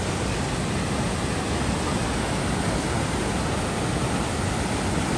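Water rushing through the gates of a concrete weir and churning into white water below: a steady, unbroken rush.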